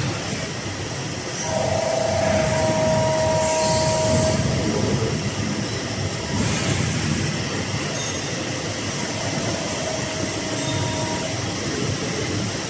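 Hydraulic CNC servo press brake running: a steady mechanical rumble with a whine that comes in about one and a half seconds in and drops away a few seconds later.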